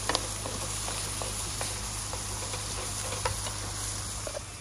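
Food frying in a pan: a steady sizzle with scattered small pops and crackles, cutting off suddenly at the very end.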